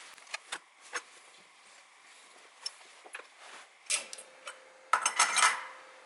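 Metal clicks and clinks as a combination drawbar wrench and spring-loaded hammer tool is handled and set into its metal holder, with a louder rattling clatter about five seconds in as it drops into place. A faint steady tone starts about four seconds in.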